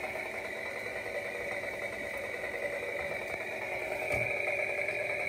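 Battery-powered toy chainsaw running with a steady, even motor-like hum, getting a little louder a few seconds in, with a faint knock.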